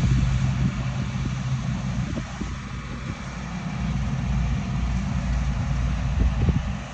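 Deutz-Fahr 4075 HTS Topliner combine harvester running while harvesting: a steady low engine drone with an even rushing noise above it.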